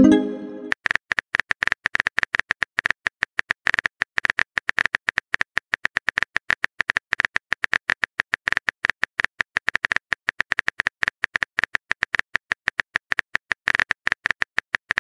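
Rapid phone-keyboard typing clicks, several a second with a light ping to each, as a message is typed out in a texting app. It opens with a short chime as the previous message is sent.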